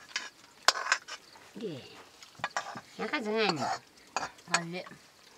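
Metal ladle clinking and scraping against an iron wok while curry is served, with sharp clinks about a second in and again near the end.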